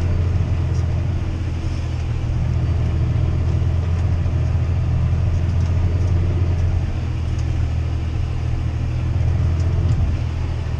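John Deere 6R tractor engine running steadily under load, pulling a plough through heavy, wet soil: a deep, even drone.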